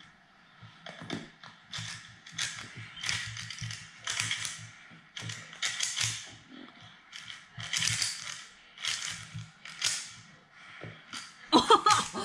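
Speedcube being turned, its plastic layers clicking and clacking in short, irregular flurries.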